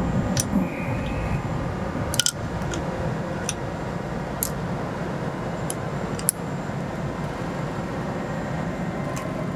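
Light clicks and taps of tooling parts being handled and set onto a punch press turret, scattered about a second or two apart, over a steady hum.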